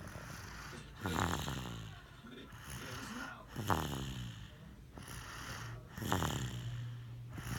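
Snoring in a slow, regular rhythm: three loud rasping snores about two and a half seconds apart, with quieter rumbling breaths between them.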